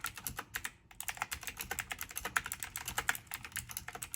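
Logitech G512 SE mechanical keyboard with clicky blue switches being typed on quickly, producing a rapid stream of sharp key clicks with a brief pause just under a second in.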